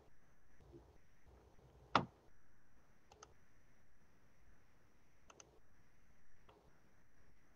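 Faint scattered clicks of a computer mouse and keyboard, with one louder knock about two seconds in.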